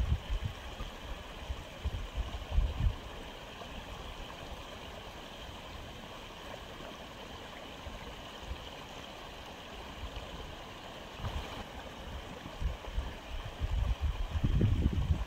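Steady running, gurgling water from an aquarium's filter circulation. Low rumbling bumps come through in the first three seconds and again in the last few seconds.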